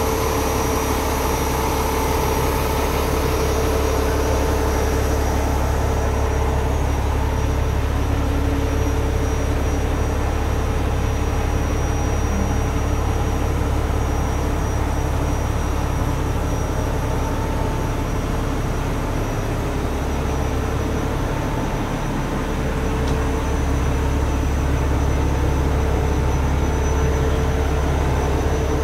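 Heavy truck engine idling with a steady low drone and a few constant higher tones over it, dipping briefly twice past the middle.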